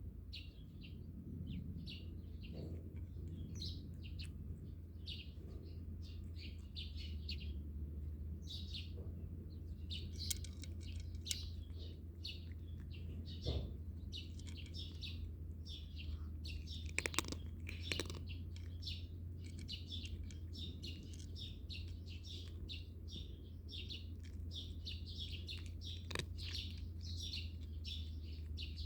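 Small birds chirping busily and continuously in short, high notes, over a steady low hum, with a few sharp clicks now and then.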